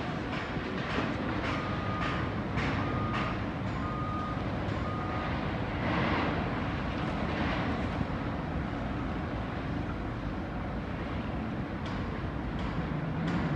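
Wind buffeting a phone microphone hung in the open air from a crane hook, a steady low rushing rumble with occasional brief knocks. A few faint short beeps sound in a run a couple of seconds in.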